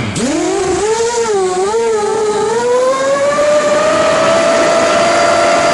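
FPV drone's motors spinning GemFan 5x4.5 propellers at take-off: a loud whine that dips and wavers in pitch for the first two seconds, then climbs and settles into a steady high whine as it flies.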